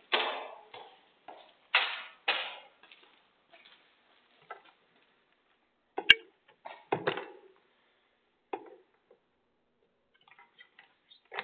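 Knocks, scrapes and clicks of a security camera being handled close to its microphone. There are several knocks in the first two to three seconds, a single sharp click about six seconds in and a heavier knock just after, then smaller clicks near the end.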